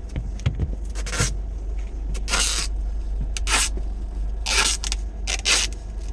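About five short scraping strokes, roughly one a second, over the steady low rumble of a train in motion, with a couple of soft thumps in the first second.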